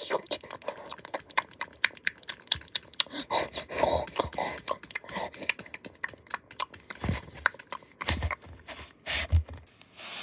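Plastic Lego minifigure parts clicking and tapping as they are handled and fitted together, a quick irregular run of small clicks. A few dull thumps come in the last few seconds.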